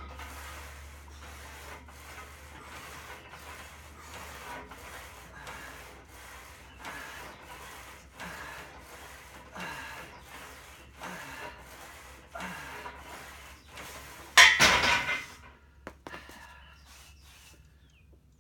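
Smith-machine bench press set: a steady rasping rhythm of hard breathing through the reps, then a loud clash about fourteen and a half seconds in as the loaded bar is racked, dying away over about a second.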